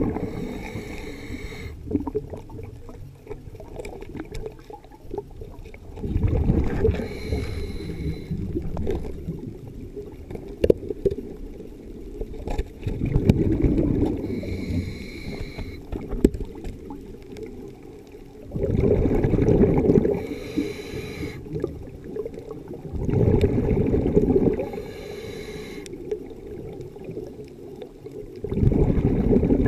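Scuba diver breathing through a regulator underwater: bursts of exhaled bubbles a second or two long, about every five seconds, with a quieter steady underwater background between breaths.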